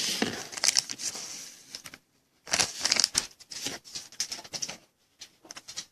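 A foil trading-card pack being opened, the wrapper crinkling and rustling with small clicks. It comes in two bouts with a brief silent gap about two seconds in.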